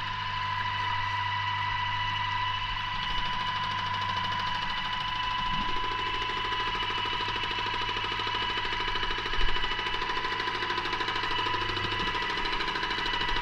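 Paint-spraying equipment running with a steady high whine over a low hum; a second, lower humming note joins about six seconds in.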